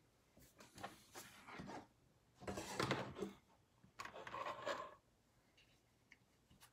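Handling noises while a light is adjusted: three short bursts of rubbing and rustling, each about a second long.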